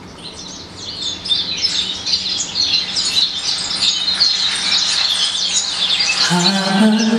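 Many small birds chirping and twittering, growing louder over the first couple of seconds. Near the end a long held musical note comes in beneath them.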